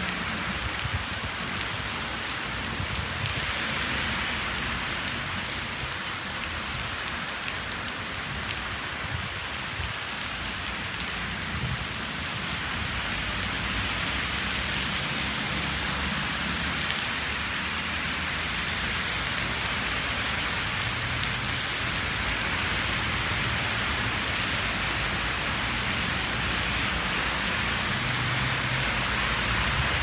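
Heavy rain falling steadily on a wet city street and pavement, an even hiss throughout, with a low rumble of traffic on the wet road underneath.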